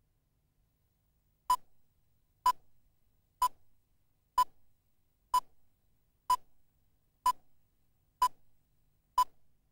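Countdown leader beeps: nine short, identical high beeps, about one a second, one for each number of the count.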